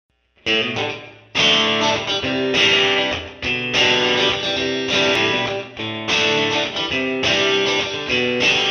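Background music: a guitar instrumental playing a run of chords that change every half second or so, starting about half a second in.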